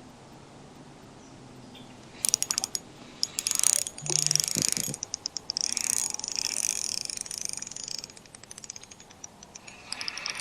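Shimano Soare XR spinning reel's drag clicking in fast, uneven runs of sharp clicks as line is pulled off, starting about two seconds in. The drag has a felt washer with drag grease, which gives it distinct, countable clicks.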